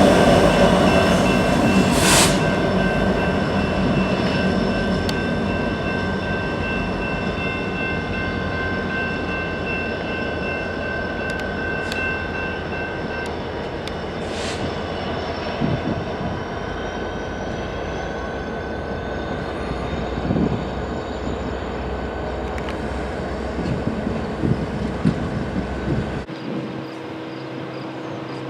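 Freight train cars rolling past on the rails, a steady rumble with a thin high ringing from the wheels and a few sharp clacks at rail joints, slowly fading; it drops away abruptly near the end.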